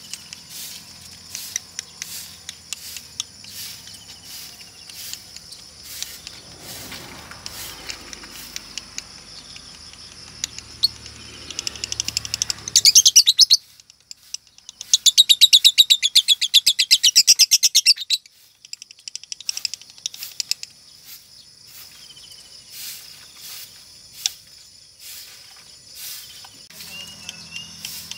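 Female Fischer's lovebird giving fast rattling chatter trills, the 'ngekek' of lovebird keepers. There is a short burst about twelve seconds in, then a longer trill of about three seconds, over steady high background chirping. The uploader presents this chatter as a sign that the hen is turning 'konslet'.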